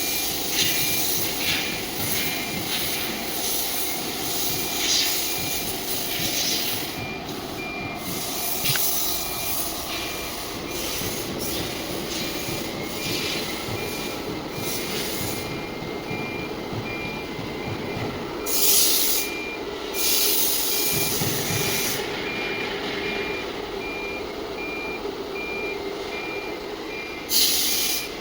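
ATC CNC machine running its automatic tool-length calibration cycle: a steady machine hum under a high beep repeating at an even pace throughout. Several loud hisses of compressed air break in, about two-thirds through and again near the end.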